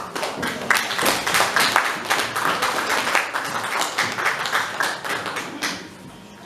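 Audience applauding, a dense run of claps that dies away near the end.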